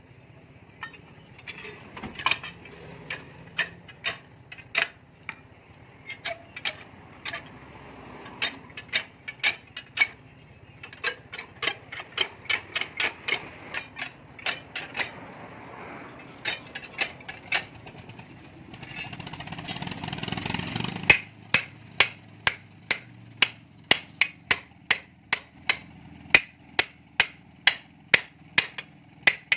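Hammer blows on steel suspension parts, sharp ringing strikes that come irregularly at first and then about two a second. A noisy whirring sound swells for about two seconds just past the middle and cuts off suddenly.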